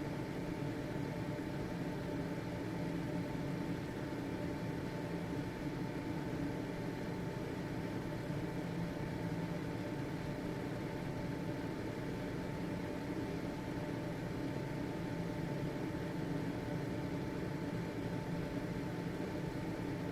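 Household ventilation fan running steadily: a constant whooshing motor hum with a faint steady tone above it.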